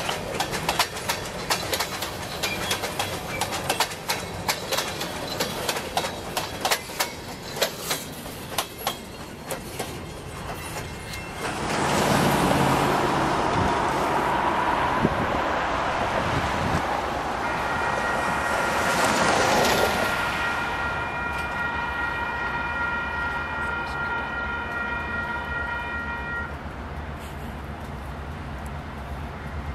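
Freight train of covered hopper cars rolling past, wheels clicking rapidly over rail joints. About twelve seconds in, road traffic passing takes over, and a steady high tone holds for several seconds toward the end.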